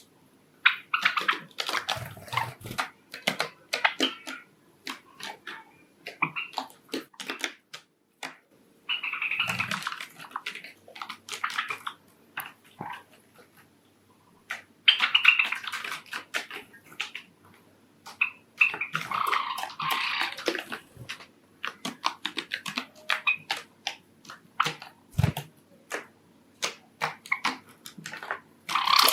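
Pet Java sparrows moving about: a scatter of sharp taps and clicks, with several rustling bursts lasting a second or two.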